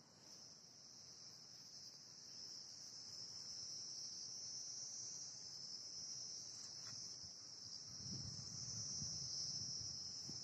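A steady, high-pitched chorus of insects, slowly growing louder, with a faint low rumble in the last few seconds.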